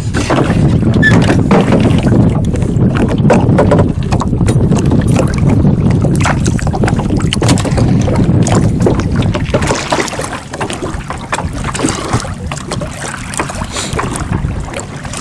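Low rumble of wind and water around a small boat, with wind buffeting the microphone, easing after about ten seconds. Scattered splashes and knocks come as a fishing longline is handled over the side.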